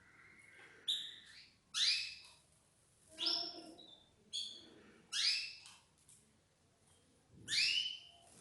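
Canaries calling: about six short, loud calls, spaced irregularly.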